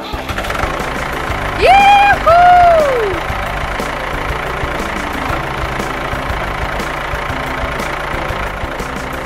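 Vehicle engine sound effect running steadily. About a second and a half in come two loud pitched sliding sounds, the second falling away in pitch.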